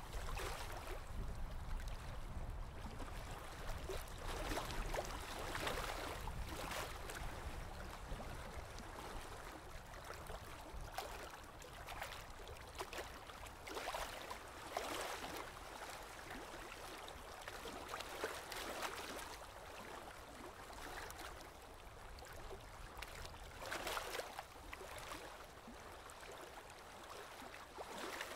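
Aquarium water gurgling and trickling, swelling and easing irregularly every second or few seconds.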